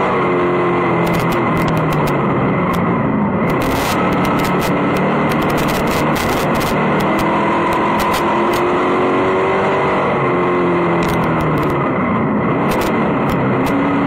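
Race car engine heard from inside the cockpit on a dirt oval, its pitch falling and rising twice as the driver lifts off and gets back on the throttle through the turns. Sharp clicks and ticks come through over it.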